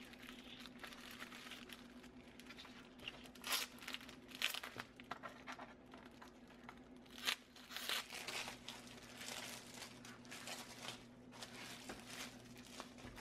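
Aluminium foil and plastic peel ply crinkling and rustling as hands handle and wrap a foil-covered shell, with a few sharper, louder crackles.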